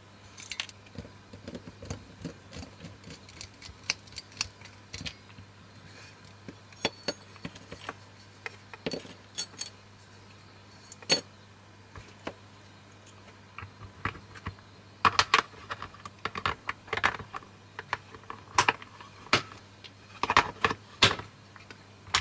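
Small metal parts clinking and clicking as screws are undone and the cast-metal optical block of a projector is taken apart: a scatter of short, sharp ticks that grow louder and more frequent in the last several seconds.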